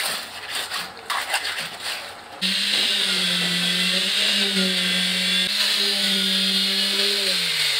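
Scraping and clattering of a trowel working wet concrete, then an electric concrete poker vibrator switched on, running with a steady hum as it compacts fresh concrete in the step formwork. Near the end it winds down, the hum sliding lower in pitch as it is switched off.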